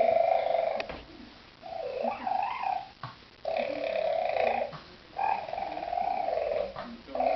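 A pet making a series of drawn-out, pitched calls, four in a row with short pauses between, the second one wavering up and down in pitch.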